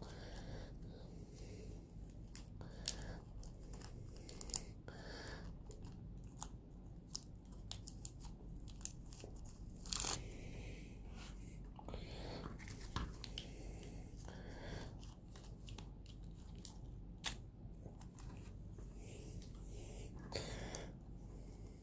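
Thin clear plastic protective wrap crinkling and crackling as it is peeled off a plastic action figure's parts, with scattered small sharp clicks from handling. There is a louder crackle about ten seconds in.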